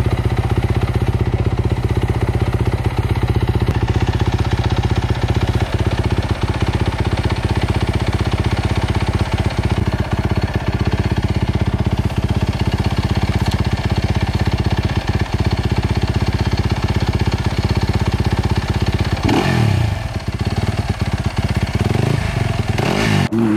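Dirt bike engine running steadily, with a brief dip and rise in revs about twenty seconds in; the sound cuts off abruptly near the end.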